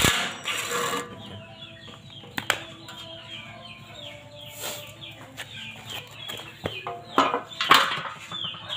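A cordless drill whirs briefly at the start as a screw is backed out. Then come knocks and clatter as a black plastic underbody panel is pulled off the buggy's steel frame, loudest near the end. Birds chirp throughout in many short falling calls over a low hum.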